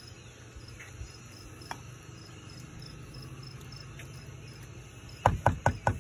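Steady high-pitched chirping of insects runs throughout. Near the end comes a quick run of four or five sharp knocks, as the avocado tool and the avocado skin are worked against the plastic mixing bowl.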